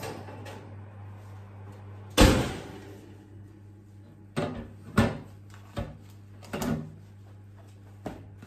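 An oven door shut with one loud thump, then a metal muffin tin set down on a kitchen worktop, with a few smaller knocks and clatters as oven gloves are handled. A low steady hum runs underneath.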